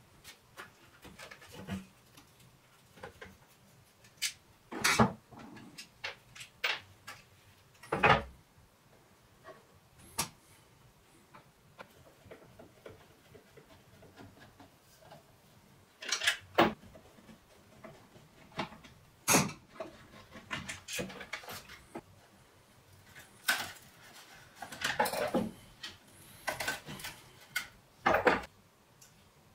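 Irregular knocks, clicks and scraping as an old bookshelf speaker is taken apart by hand: its plastic front panel, driver, screwdriver and screws are handled and set down on a chipboard board, with several sharp knocks spread through.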